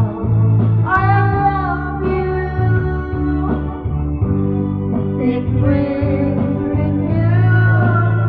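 A man singing into a handheld microphone over karaoke backing music, his voice held in long, wavering notes above steady low bass notes.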